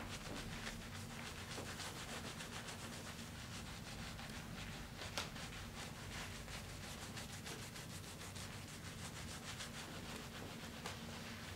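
Razor scraping over skin and body hair in many short, quick strokes, with a faint steady hum underneath.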